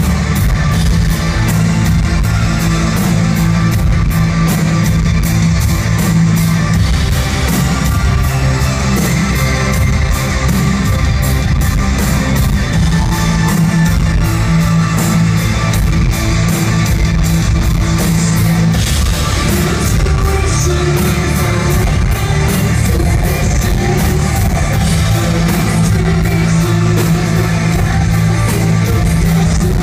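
Live rock band playing, with distorted electric guitar over a drum kit keeping a steady beat.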